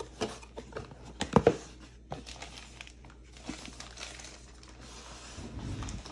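Cardboard box being opened, with a few sharp knocks in the first second and a half, then packaging crinkling and rustling as the power supply is lifted out.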